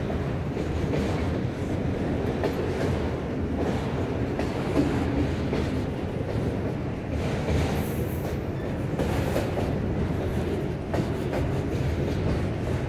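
A freight train of multilevel autorack cars rolling past close by: a steady rumble of wheels on rail, with irregular clicks as the wheels cross rail joints.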